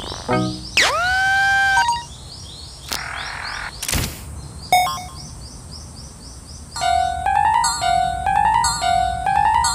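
Synthesized electronic warning tones of a cartoon level-crossing alarm. A tone sweeps up into a held note about a second in. From about seven seconds two notes alternate, low then high, roughly twice a second, like a crossing's 'kan-kan'.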